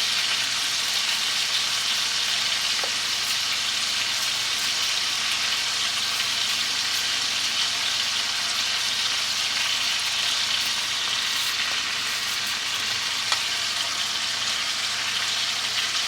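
Steady sizzling and crackling of food frying in a skillet, with a single sharp tap about thirteen seconds in.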